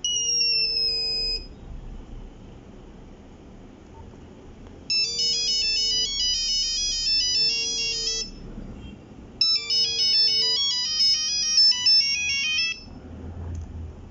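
Nokia 3310 monophonic ringtone playing: a short falling tone, then two runs of a fast beeping melody about three seconds each with a pause between. A low buzz comes and goes in short bursts alongside, the phone's vibrating alert.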